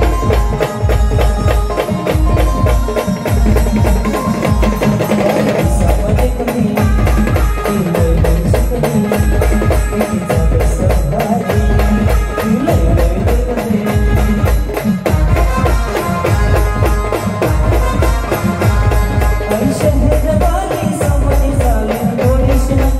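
Indian brass band playing a song live, with a heavy bass drum beat about once a second under a moving melody line.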